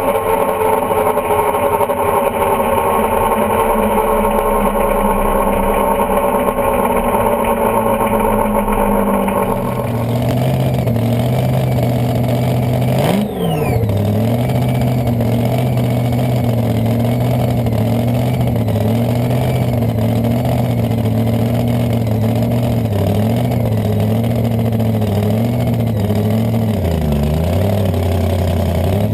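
Top Alcohol dragster engine running at low speed. Its pitch drifts slowly down at first, then changes abruptly about ten seconds in to a lower, steady note that wavers slightly, with one quick dip and recovery a few seconds later.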